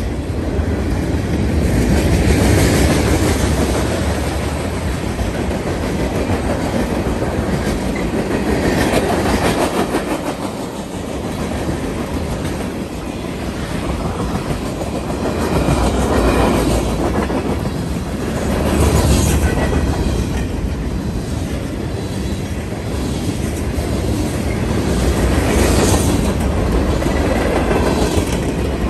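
Freight train cars rolling past close by: steel wheels rumbling and clattering over the rail joints in a clickety-clack. The sound swells and eases every few seconds as the tank cars, hoppers and boxcars go by.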